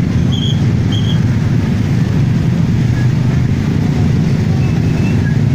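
Many motorcycle and scooter engines running at low speed in dense, crawling traffic, a steady loud rumble with no single engine standing out.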